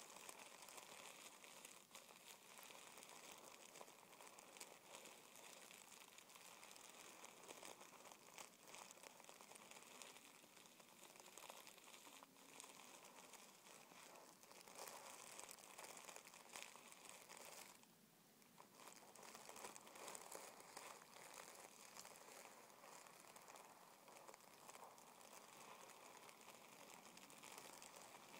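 Fingertips scratching and rubbing crumpled tissue paper: a soft, continuous crinkling of fine rustles and tiny crackles, with a brief lull about two-thirds of the way through.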